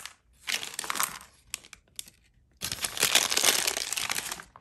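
Small plastic accessory bag crinkling as it is handled and torn open: a short burst of crackling about half a second in, then a longer, louder stretch from about two and a half seconds to near the end.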